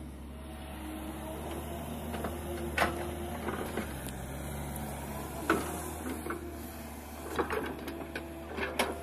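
Kobelco SK210LC hydraulic excavator working soil: its diesel engine runs steadily with a whine from the hydraulics while the bucket digs and lifts earth. A few short sharp clanks from the bucket and its linkage are spread through.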